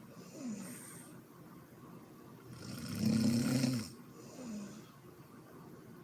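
A woman snoring in her sleep: one loud snore about halfway through, lasting about a second, with a shorter, softer breath falling in pitch after each snore.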